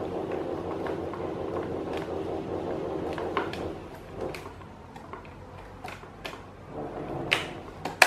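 Plastic fan grille being pressed onto a Britânia BVT30 Turbo fan, its clips snapping into place with scattered light clicks and knocks, the sharpest near the end. A steady hum in the background fades about halfway.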